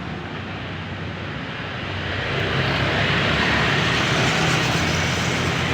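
A motor vehicle engine running steadily, with a rush of noise building up about two seconds in and staying loud.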